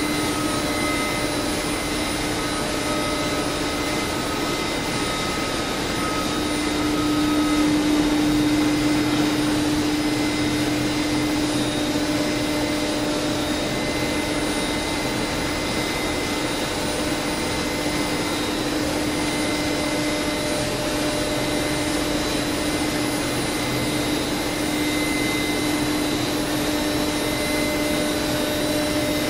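Laguna SmartShop 1 CNC router running: the spindle gives a steady whine over the loud, even rush of the vacuum hold-down pumps while the gantry moves the spindle across the empty table.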